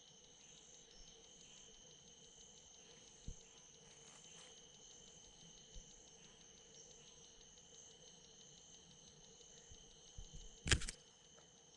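Faint night insect chorus of crickets, a steady high trill with a faint regular pulse. A single sharp click near the end, like handling noise.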